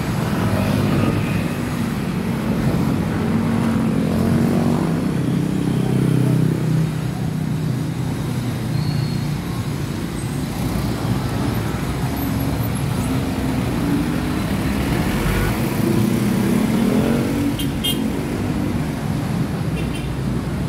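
Street traffic: the engines of passing cars, motorcycles and small utility trucks run steadily, with one vehicle passing close about four to six seconds in and another around fifteen to seventeen seconds, its engine note rising and then falling away.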